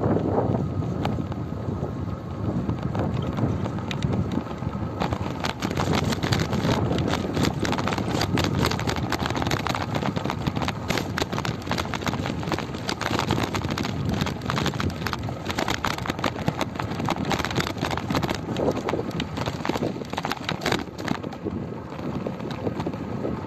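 Loose gravel crunching in a dense, irregular crackle as it is crossed, starting about five seconds in and fading near the end, over a steady rumble of wind on the microphone.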